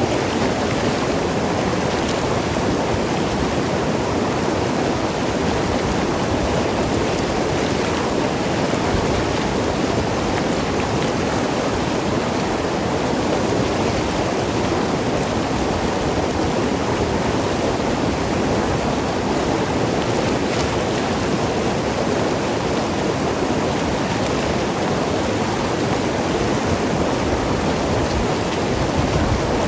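Mountain river rushing and gurgling over rocks, a steady full wash of flowing water.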